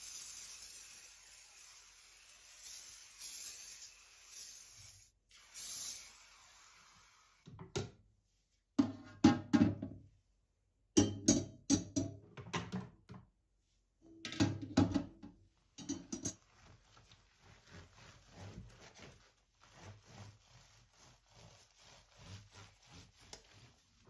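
Gas hob burner grates and caps handled in a stainless steel sink: a hiss for the first few seconds, then a run of loud knocks and clatter as the metal parts are set down and moved, then quieter rubbing as the oily hob is scrubbed.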